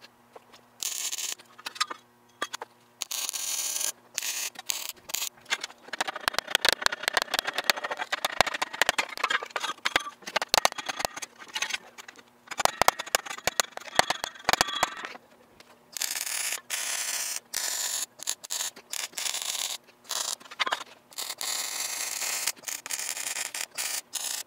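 Wire-feed (MIG) welder arc crackling and sizzling on steel, in bursts that stop and start. There is a short burst about a second in, a long crackling run with many sharp pops, then a string of long welds with brief pauses in the second half.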